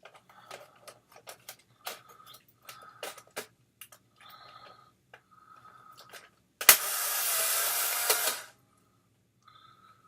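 Polaroid One Step instant camera: small handling clicks, then the shutter fires with a sharp click, and the film-ejection motor whirs steadily for about two seconds before stopping.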